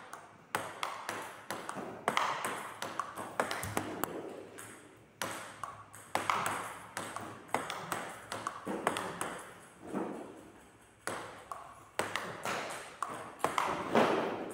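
Table tennis rally: the ball clicking off the paddles and the table in a quick, steady back-and-forth, about two sharp clicks a second. One paddle is faced with Yinhe Pluto pimples-out rubber.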